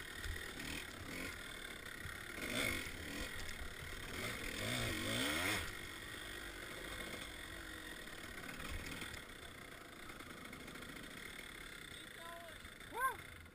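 Kawasaki KDX 200's two-stroke single-cylinder engine revving up and down through tight woods turns, its pitch rising and falling, heard faintly.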